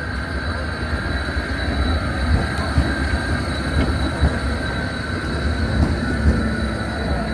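Low-floor electric tram passing close by at low speed: a steady low rumble of wheels on the rails, a few scattered knocks, and a constant high hum.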